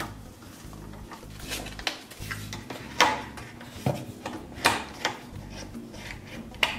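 Wooden blind valance being pushed onto the headrail, its plastic valance clips snapping into place: a string of sharp clicks and knocks, the loudest about three seconds in.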